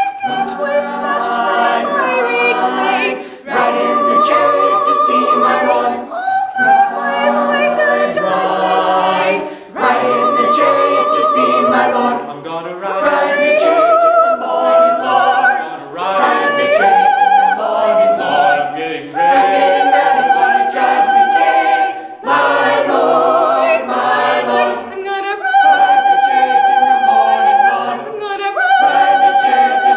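Mixed-voice choir of young singers singing a hymn a cappella in several parts. The phrases are broken by short pauses for breath every few seconds.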